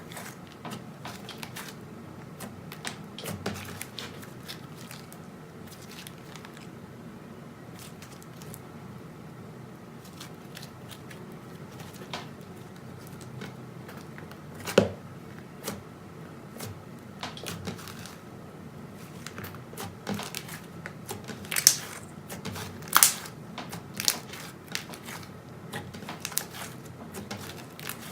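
Slime being squeezed and poked: a steady run of small crackles and clicks, with a few louder pops, one about halfway through and two close together later on.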